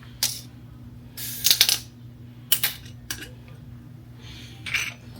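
Short clicks and clinks of a bottle and a drinking glass being handled, a handful of separate knocks with a small cluster about a second and a half in, over a faint steady hum.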